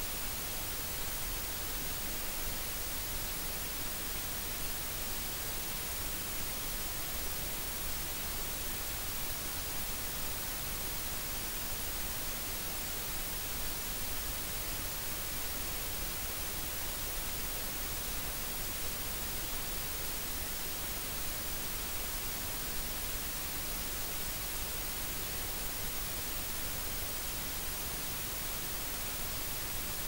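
Steady white noise: an even, unchanging hiss, strongest in the treble.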